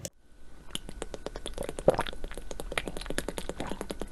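Water bubbling: a dense, irregular run of small pops and bloops that begins about half a second in, after a brief hush.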